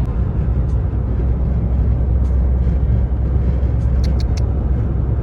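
Steady low road and engine rumble of a car driving at speed, heard from inside the cabin, with a few faint ticks about four seconds in.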